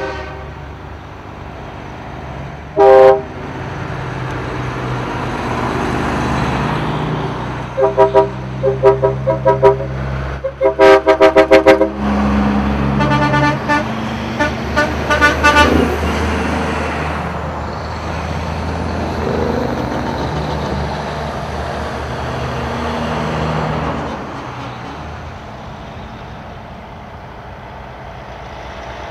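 Semi trucks roll past with their diesel engines running, and drivers sound their horns. There is one loud blast about three seconds in, then bursts of short toots from about eight to sixteen seconds in.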